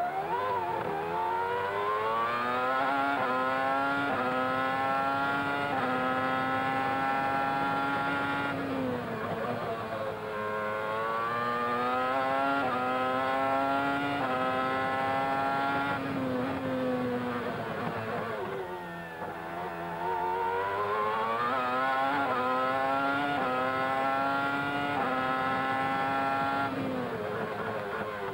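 McLaren-Mercedes Formula One car's 3.0-litre V10 heard onboard at racing speed. The revs climb in stepped upshifts through three acceleration runs. Each run ends with braking and the pitch falling through downshifts, about 9 and 17 seconds in and again near the end.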